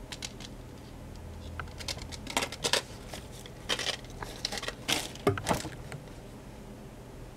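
Bubble wrap and a thin plastic bag rustling and crinkling in irregular handfuls as small items are unwrapped by hand, with a soft knock about five seconds in.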